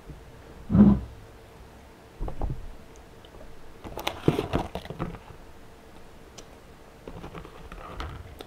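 Mouth and chewing sounds, then a run of sharp crackly clicks about four seconds in as the lid of a clear plastic takeout container is pried open, with a few dull knocks on the table.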